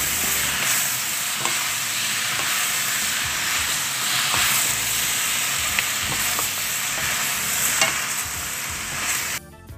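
Shrimp sizzling in butter and oil in a pan, stirred and tossed with two wooden spatulas that knock against the pan a few times. The sizzle cuts off suddenly near the end.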